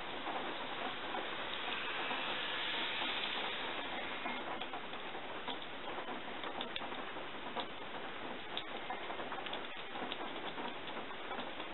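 A steady hiss with scattered faint ticks and clicks, more of them in the second half.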